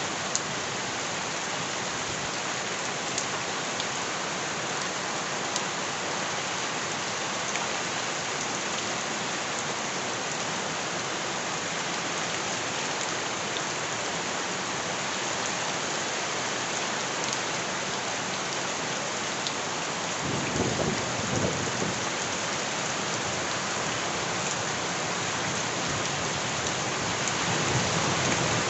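Steady heavy rain falling, an even hiss of drops on surfaces. About two-thirds of the way through comes a brief low rumble that swells and fades, with a smaller swell near the end.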